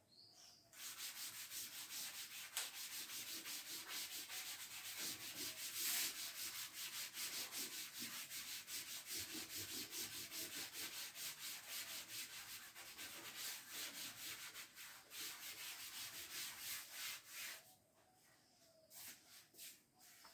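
A chalkboard being wiped clean with a board duster: quick, rhythmic back-and-forth rubbing strokes, a few a second. They stop near the end, with a few brief strokes after.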